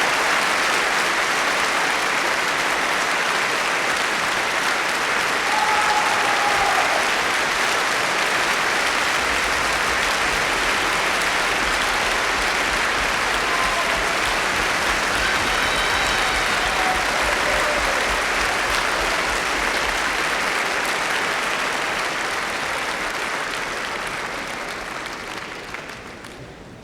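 Large crowd applauding steadily, dense clapping with a few faint whistles or shouts mixed in, dying away over the last few seconds.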